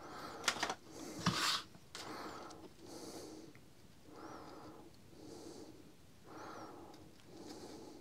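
A person breathing steadily through the nose close to the microphone, about one breath cycle every two seconds, some breaths with a faint whistle. A few light handling clicks in the first two seconds.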